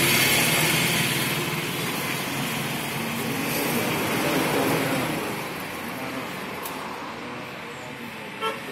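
Steady vehicle noise: an engine running nearby with traffic, and a brief tone near the end.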